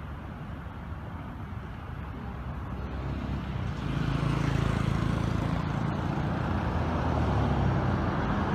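Low rumble of a motor vehicle running nearby, growing louder about three and a half seconds in.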